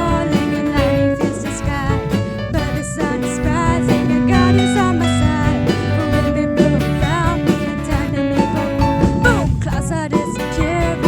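Worship song music with guitar and a singing voice, playing steadily.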